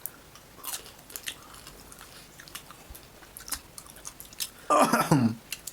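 Close-up crunching and chewing of crispy fried crab, with sharp crunches of shell scattered irregularly throughout. A short voiced sound falling in pitch comes near the end.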